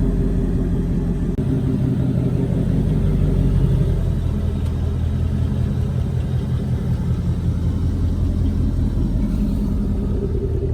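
Supercharged 5.0 V8 of a 2020 Ford Mustang GT, with an X-pipe and resonator-delete exhaust, running with a steady, deep exhaust rumble.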